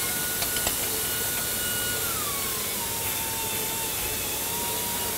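A steady rushing machine noise with a thin whine that drops in pitch about two seconds in, with a few light metallic clicks of wrenches on bolts near the start.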